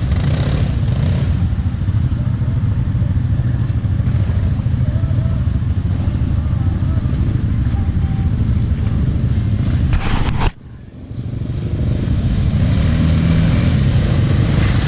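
Off-road vehicle engine running steadily under way. It drops away suddenly about ten and a half seconds in and builds back up over the next couple of seconds.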